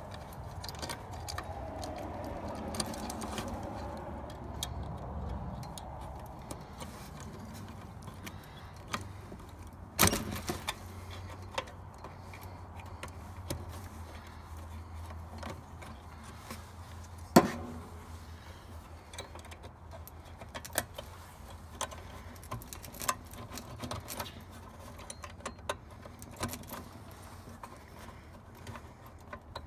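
Small metallic clicks and clinks of wires and spade connectors being handled inside a heat pump's control box, with two sharp snaps about ten and seventeen seconds in, over a steady low rumble.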